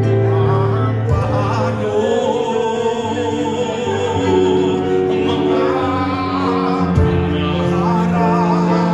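Two men singing a sad song together through hand-held microphones, with piano accompaniment holding long notes underneath.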